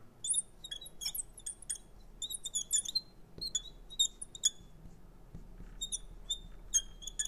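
Marker squeaking on a glass writing board, a string of short, high-pitched strokes as handwritten words are written, with a pause of about a second two-thirds of the way through.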